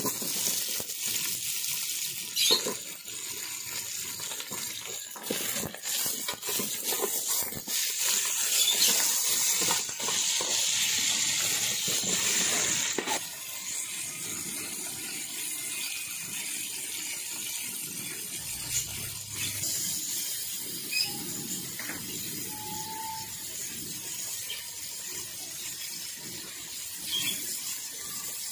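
Mutton pieces sizzling in hot oil with fried onions in an aluminium pot, the steel ladle scraping and clinking against the pot as it stirs. The sizzle is loudest in the first half and settles to a steadier, quieter hiss about 13 seconds in.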